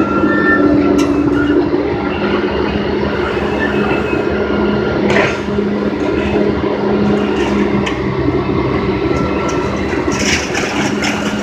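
Scrapyard magnet crane running with a steady engine hum, with a few clanks and scrapes of scrap metal being lifted off the load, the loudest about five seconds in and again near the end.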